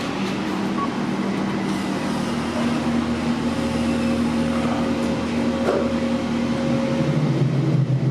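Kone MonoSpace lift car travelling between floors: a steady running hum with a few held tones, a lower tone setting in about seven seconds in.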